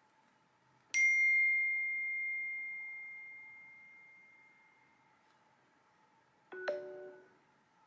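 Apple iOS 17 text tones played in turn: about a second in, a single bell-like ding that rings out and fades over about four seconds; near the end, a shorter, lower chime of a couple of quick notes.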